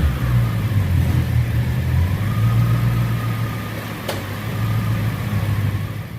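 Whipple-supercharged 2021 Mustang GT's 5.0-litre V8 running on the chassis dyno during tuning. A whine rises about two seconds in and then holds, and there is one sharp click about four seconds in.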